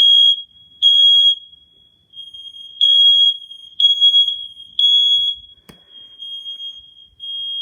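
Smoke alarm sounding on test: a shrill high beep in the three-beep pattern, three half-second beeps, a pause of about a second and a half, then three more. After a click near the end the loud beeps stop and a fainter alarm tone carries on.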